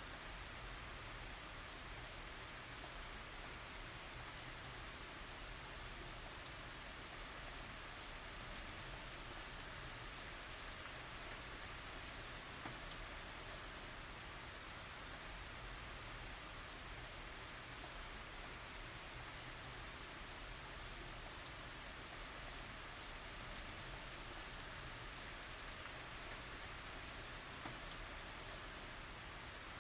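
Steady tropical rain falling, an even hiss with scattered faint drop ticks and no thunder.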